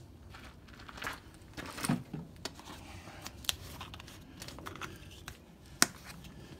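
Plastic jug of engine oil being handled: scattered clicks, crinkles and scrapes, with a sharp click near the end.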